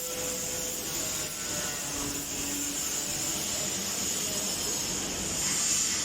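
Grinder fitted with a sanding disc running steadily, with a high steady whine over the noise of the disc.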